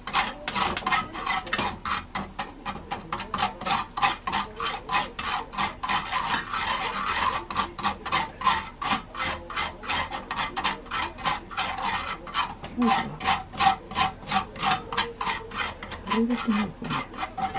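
Dried baby sardines for gomame being stirred and tossed in a pan: a quick, even scraping, about four strokes a second.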